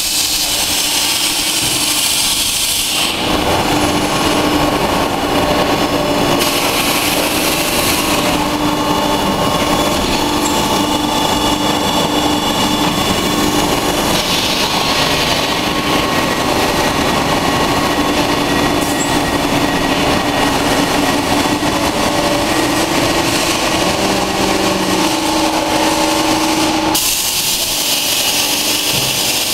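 Industrial machinery running: a loud, steady hum with a few held tones. A high hiss is there at the start and near the end, and comes up twice in between.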